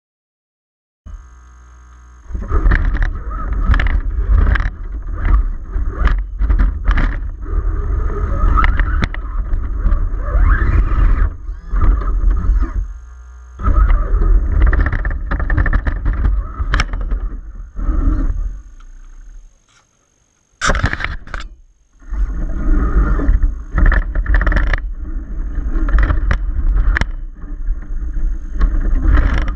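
Onboard-camera audio from an Axial SCX10 RC rock crawler driving over rock: its electric motor and gears whine under throttle over a heavy rumble, with frequent sharp knocks as the truck jolts over the stone. It starts about a second in and cuts out briefly twice, the longer pause about twenty seconds in.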